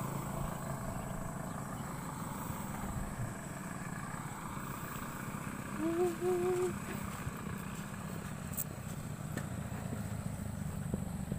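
Motorcycles running along the road, a steady low engine hum. About six seconds in comes a short pitched, wavering sound.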